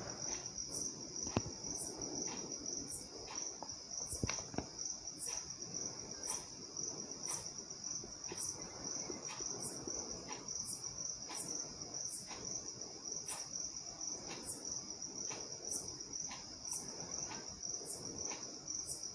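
A steady, high insect chirping, pulsing about twice a second. Under it, the soft, wet squelch and scrape of a steel spoon mixing mutton pieces in a thick yogurt-and-spice marinade in a bowl, with two light knocks of the spoon in the first few seconds.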